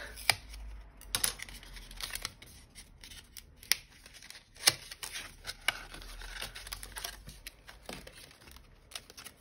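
A glue stick's cardboard-backed plastic blister pack being opened and handled: plastic crinkling and rustling, with scattered sharp clicks and snaps.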